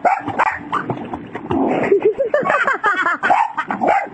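A dog barking and yelping over and over, with water splashing.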